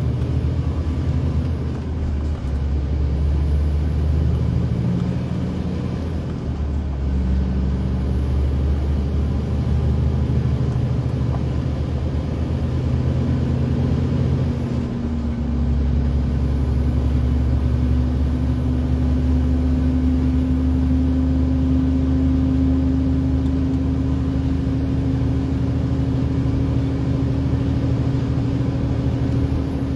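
Heavy truck engine and cab noise while driving: a steady low drone, dipping briefly about two, six and fifteen seconds in. In the second half a humming tone rises slowly.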